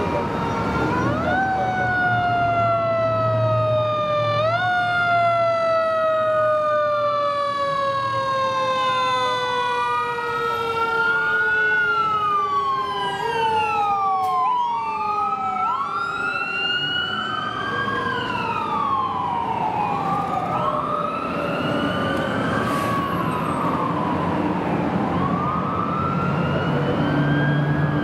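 Several fire apparatus sirens wailing as trucks pass: at first a siren that falls slowly over several seconds and climbs back quickly twice, then from about halfway quicker overlapping wails rising and falling. The trucks' engines make a low rumble underneath.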